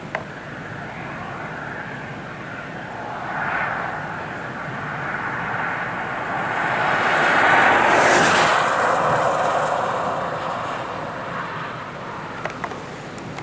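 A vehicle passing by: its road noise swells gradually to a peak about eight seconds in, then fades away.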